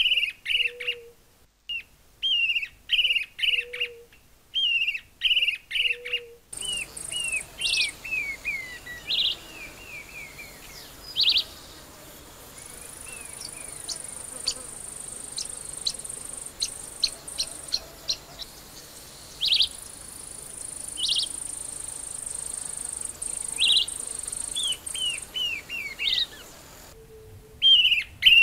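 Narrow-billed woodcreeper singing: repeated bursts of sharp, down-slurred whistled notes, each burst about a second long. Partway through, a hissy background comes in, with a longer falling run of notes, scattered single sharp notes and a steady high-pitched buzz.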